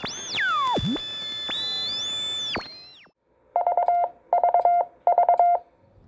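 Synthesized logo-intro sound effects: electronic tones sweeping up and down over a held high tone, fading out about three seconds in. Then come three short bursts of rapid beeps, all at one steady pitch.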